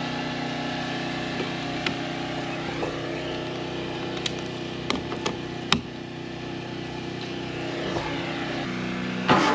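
An engine idling steadily, with several sharp knocks over it in the middle. Just before the end a louder rushing noise starts suddenly.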